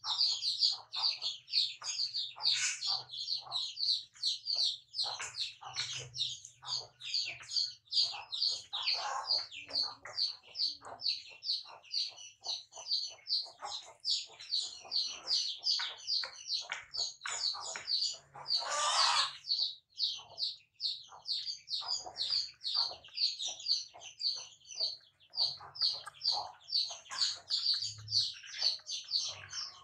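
Small birds chirping rapidly and continuously, a few short high chirps a second, with a louder noisy burst about 19 seconds in.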